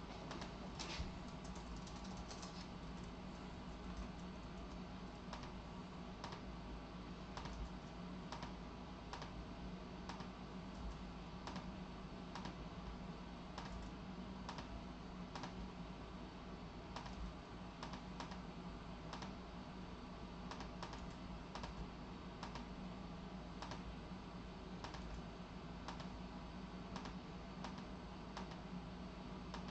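Irregular clicking of typing on a computer keyboard, over a steady low background hum.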